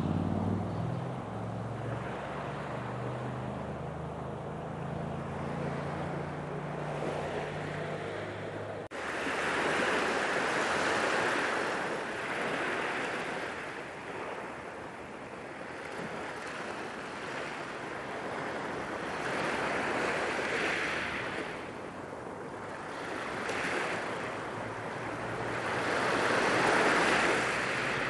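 Small waves washing up a pebble beach, the surf hiss swelling and fading every several seconds. A steady low hum underlies the first nine seconds or so, then stops abruptly.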